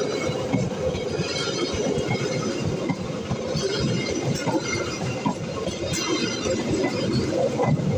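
Train running past on the rails, its wheels clattering continuously, with scattered high-pitched clinks over the top.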